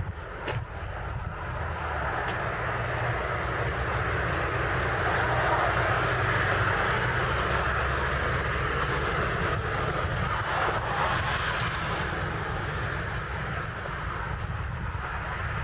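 Wind buffeting the microphone with a low rumble throughout, under a rushing sound that builds over a few seconds, peaks in the middle and fades away.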